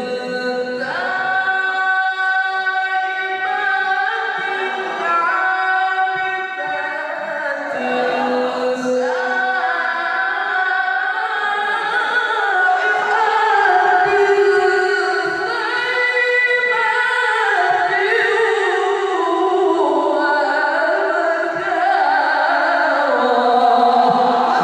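A man reciting the Qur'an in melodic tilawah style, singing into a microphone over a PA. He holds long notes and ornaments them with sliding turns.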